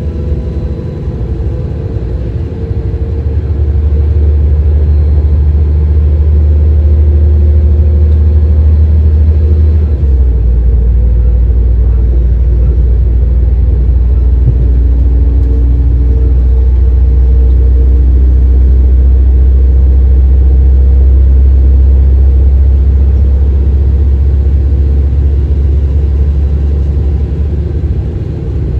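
Underfloor diesel engines of an Alstom Coradia LINT 41 (DB class 648) railcar running with the train at a standstill: a steady low rumble that grows louder about three seconds in, and whose note shifts lower about ten seconds in.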